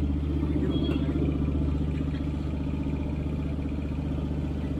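Steady low mechanical hum with a fast, even pulsing from a running motor, heard while petrol is pumped into a scooter's tank.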